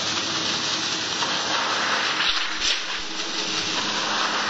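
Schuler rotary slitting machine running as steel sheet is fed through its circular knives and cut into strips: a steady hissing rush of metal, brightening for a moment a little over two seconds in.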